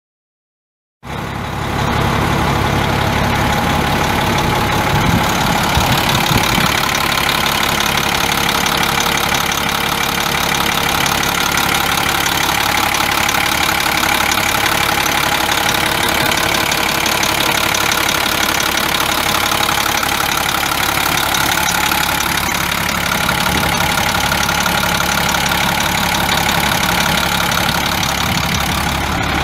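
International DT466 7.6-litre inline-six turbo diesel engine of a 2002 International 4900 dump truck, idling steadily.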